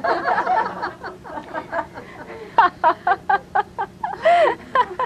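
People laughing at a joke, with a woman's laugh in quick repeated ha-ha pulses through most of it.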